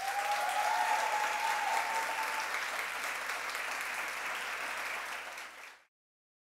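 Audience applauding, with one long high note held above the clapping and rising slightly over the first two seconds or so. The applause eases a little and then cuts off abruptly near the end.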